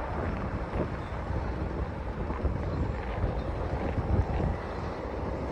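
Wind buffeting the phone's microphone in uneven gusts, over a steady rumble of jet aircraft noise.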